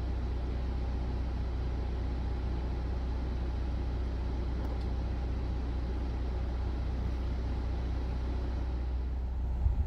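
Car engine running with a steady low hum, with a few low bumps near the end.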